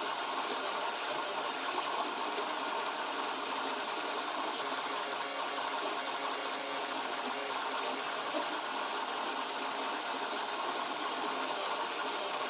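FDM 3D printer running a print: stepper motors whirring and buzzing in quick, shifting patterns over a steady hiss.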